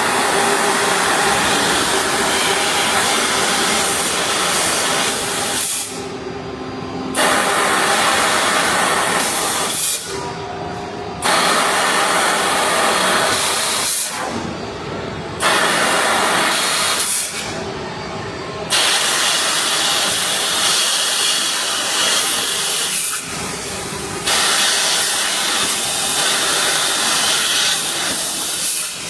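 Laser cutting head of a combined CNC punch and laser cutting machine, with its assist gas hissing loudly as it cuts sheet metal; the hiss stops briefly five times, as the head moves between cuts.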